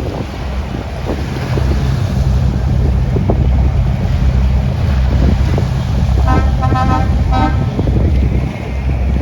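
Boat engine rumbling with wind buffeting the microphone. About six seconds in, a horn gives two short toots.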